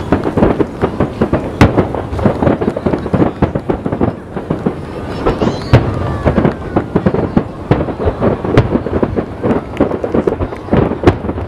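Aerial fireworks shells bursting in rapid succession: a dense, unbroken run of overlapping booms and sharp bangs.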